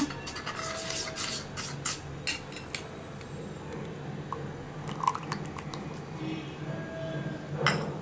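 Light clinks and taps of a cup and spoon against a microwave bowl as flour slurry is poured into blended tomato soup. There is a quick run of clinks in the first three seconds and a few scattered taps later.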